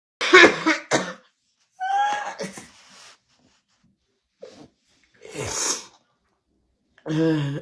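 A woman coughing hard and uncontrollably in several separate fits after inhaling a cannabis dab, with a pitched, wheezy gasp for air about two seconds in.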